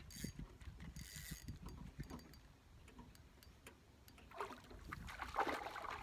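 Faint ticking and knocking of a spinning reel being cranked and the rod handled while fighting a hooked trout, with a short rustling noise near the end.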